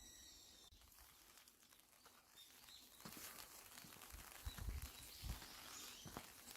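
Near-silent outdoor quiet with faint birdsong, then soft footsteps on a path from about four seconds in.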